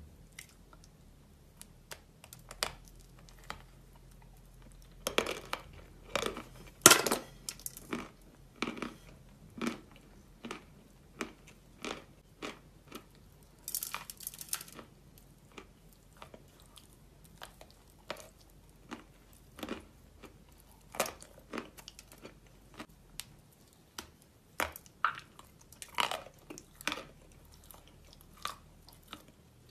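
Close-miked biting and chewing of chalk spread with clay paste: sharp, irregular crunches one after another, the loudest about seven seconds in.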